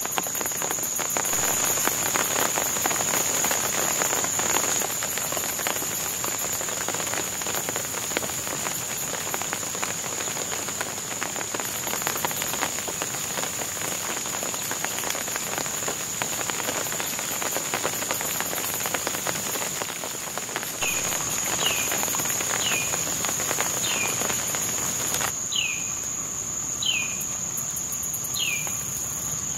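Rain pattering on wet swamp foliage under a steady, high-pitched insect trill. From about two-thirds of the way through, a bird repeats a short, downslurred whistled note about once a second. Near the end the rain noise drops away suddenly while the insect and bird carry on.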